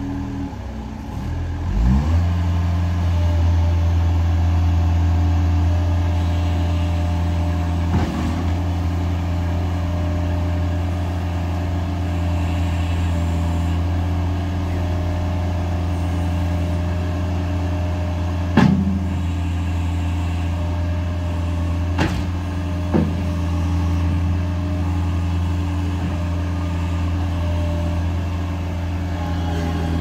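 Bobcat S100 skid steer loader's small three-cylinder diesel engine running, picking up speed about two seconds in and then running steadily, with a few sharp knocks from the machine as it moves.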